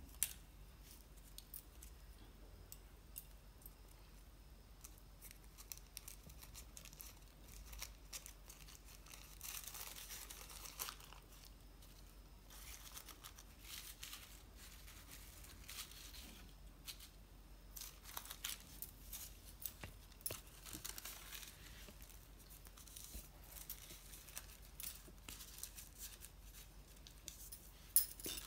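Thin kite paper rustling and crinkling as it is handled, cut and folded by hand, in faint irregular stretches with scattered small clicks.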